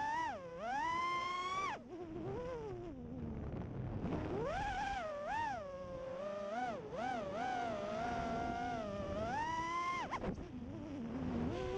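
5-inch FPV quadcopter's brushless motors (EMAX RS2205-S 2300KV) and three-blade props whining, the pitch swooping up and down with each throttle change. The whine drops away sharply about two seconds in and dips briefly near ten seconds, as the throttle is cut and punched again.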